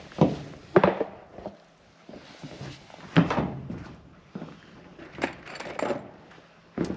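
Irregular knocks and thuds from work on a metal roof, about nine in a few seconds, some in quick clusters, with no steady tool rhythm.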